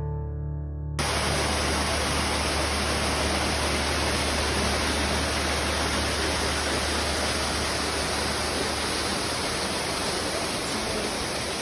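Steady, even rush of water, which takes over when background music stops about a second in.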